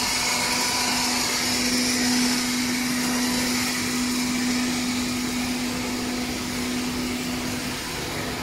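Continuous frying machine running under test: a steady mechanical hum and whir from its motors, with the mesh-belt conveyor drive and oil circulation pump switched on.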